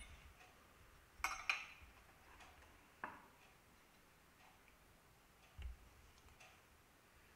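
A fork clinking against a ceramic plate, two quick clinks and then a third, followed by a soft low thump as the plate is shifted on a wooden board. Faint light ticks come in between.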